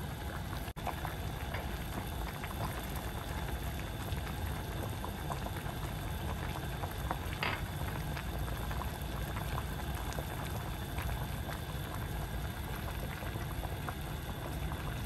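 Pot of watercress and pork soup at a rolling boil, bubbling steadily with many small pops.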